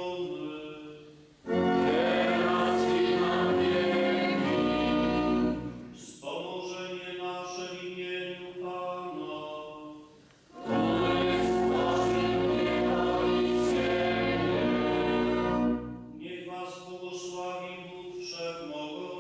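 Sung dialogue of a bishop's solemn blessing at the end of Mass: a single male voice chants a line, then the congregation answers in song with organ, twice. Each answer is much louder than the solo chant.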